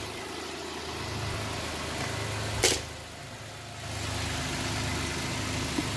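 Toyota Sienna engine idling steadily on its own after a jump start, with the jumper pack disconnected. A single sharp click sounds about two and a half seconds in.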